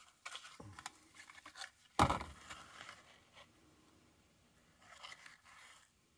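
Handling noise from a small cardboard spark-plug box being opened: rustling and light clicks, with one louder knock about two seconds in.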